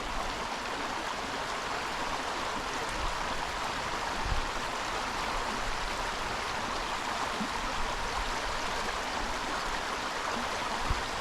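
Creek water running steadily, an even rush with no change.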